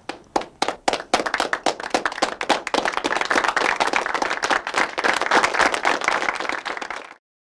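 Applause: a few separate claps that build within a couple of seconds into a steady round of clapping from many hands, which cuts off abruptly near the end.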